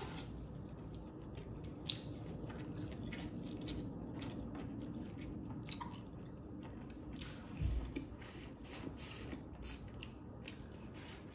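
Close-miked chewing of a piece of boiled corn on the cob, with many wet mouth smacks and clicks. A single low thud comes about seven and a half seconds in.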